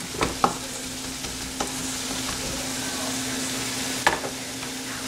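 Onion-tomato masala sizzling steadily in a kadai on a low flame, with the stirring spoon clicking against the pan a few times shortly after the start and once about four seconds in.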